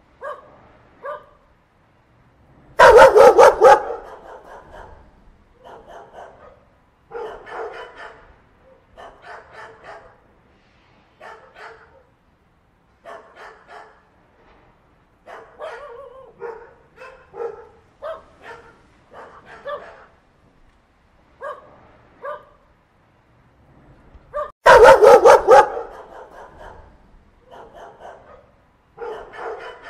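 Dog barking in short runs of a few barks, again and again. Two much louder, harsher bursts come about three seconds in and about twenty-five seconds in.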